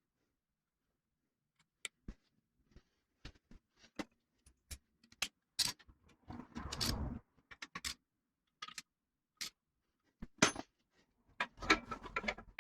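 Scattered clicks and clinks of tools and engine parts being handled, with a short stretch of rattling and scraping about six seconds in.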